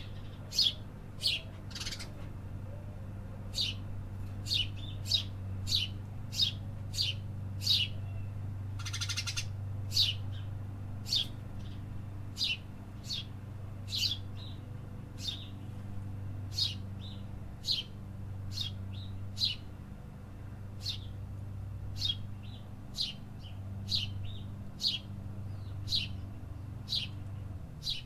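A small bird chirping over and over, one short sharp chirp roughly every second, with a harsh buzzy call about nine seconds in. A steady low hum runs underneath.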